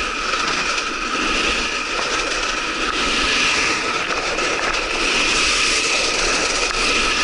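A snowkiter sliding across icy, slushy spring snow: a steady scraping hiss with two faint steady whistling tones, swelling and easing every few seconds.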